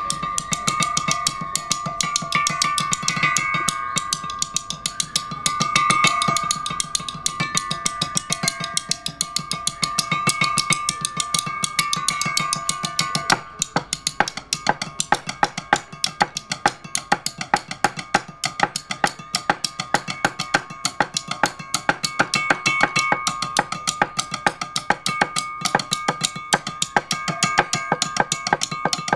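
Mallets rapidly striking a row of open-ended square metal tubes of graded lengths, played like a metallophone by two players. The strikes are dense and continuous, each ringing on a few steady pitches. About halfway the swelling rolls give way to sharper, separate strokes at a quick, even rate.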